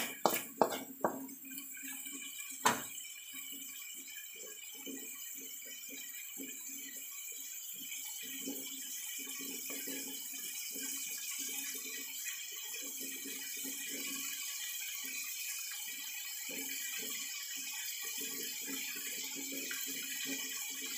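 Chicken, chorizo and onion sizzling and crackling in oil in a wok. In the first three seconds a wooden spatula knocks and scrapes against the pan a few times.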